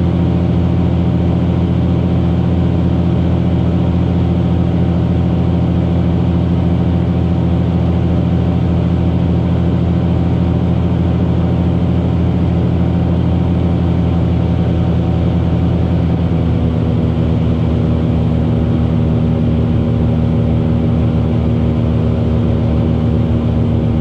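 Cessna Skymaster 337's push-pull twin piston engines and propellers running steadily on final approach, heard from inside the cockpit as a loud, even drone. About two-thirds of the way through, the pitch of the drone shifts.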